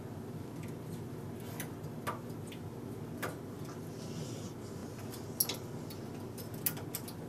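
Scattered light metallic clicks, six or seven at irregular intervals, as a transfer tool and the latch needles are worked by hand on a knitting machine's needle bed to move stitches for a decrease. A low steady hum lies under them.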